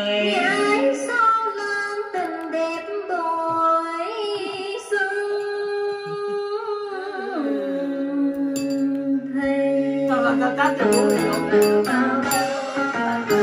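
Karaoke: a man singing into a handheld microphone over backing music, with long held notes; a fuller accompaniment comes in near the end.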